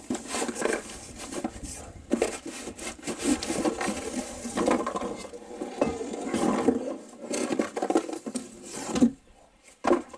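Hands handling the packaging of a propeller kit: plastic and paper crinkling and rustling, with small knocks, dying away about nine seconds in.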